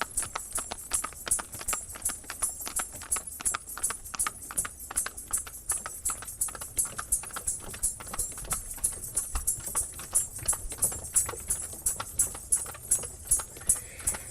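A steady, even run of sharp clicks or clops, about four a second.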